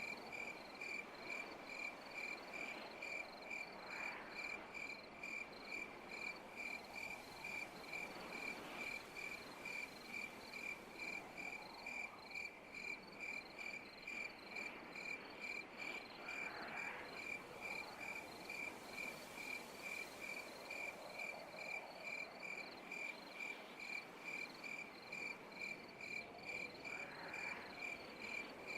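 Cricket chirping in an even, unbroken rhythm of high chirps, about two to three a second, over a fainter background of night insects with occasional soft lower calls.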